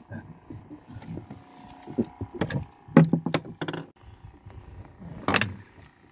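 Fishing tackle being handled aboard a small boat: a string of sharp knocks and clicks, including a quick rattle of clicks near the middle and the loudest knock about five seconds in.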